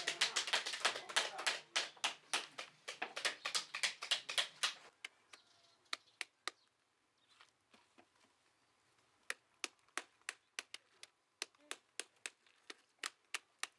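Knives chopping open pomegranates: a busy run of sharp chops from several workers for about five seconds, then single chops close up at irregular intervals.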